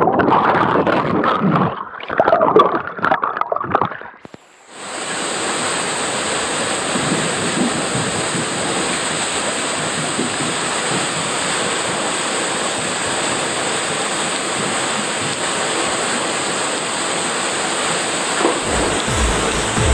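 Splashing and bubbling of a body-slider plunging into a water slide's landing pool, muffled with the camera underwater. After a brief dip about four seconds in, a steady rush of water pouring off the rim of the funnel slide's bowl into the pool below. Music starts near the end.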